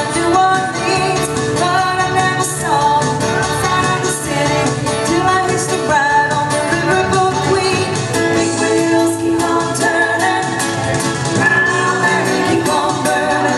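Music with a singing voice, steady and loud throughout.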